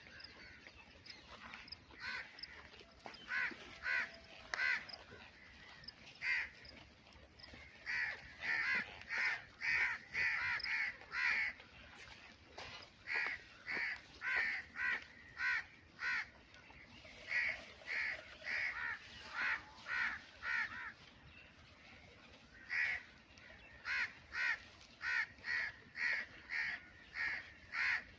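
Birds calling, a run of short repeated calls coming several a second in bouts, sparse at first and near-continuous from about eight seconds in.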